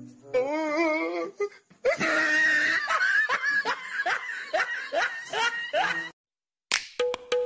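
A person laughing hard in a run of repeated rising shrieks, about two a second, after a short wavering wail. It cuts off, and after a brief silence music with a sharp, regular beat starts near the end.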